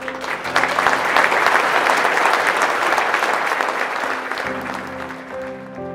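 Audience applauding: dense clapping that swells within the first second and dies away about four to five seconds in, over soft background music.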